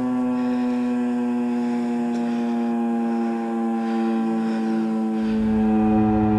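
Federal Signal 2001-130AC mechanical outdoor warning siren sounding one steady tone, its pitch slowly falling a little. A low rumble joins about five seconds in.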